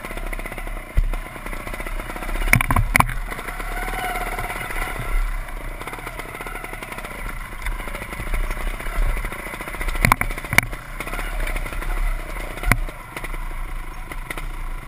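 Off-road motorcycle engine running at low revs, the pitch rising and falling as the bike is ridden over loose rocks. Several sharp knocks come as the bike strikes stones, a pair about three seconds in and more about ten seconds in and near the end.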